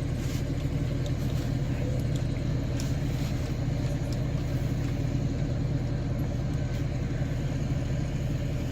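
Engine running steadily with a low drone, and a few faint clicks over it.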